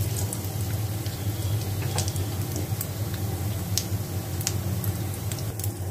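Panch phoron seeds and bay leaves sizzling in a shallow pool of hot oil in a kadhai, with a few sharp pops from the spices, over a steady low hum.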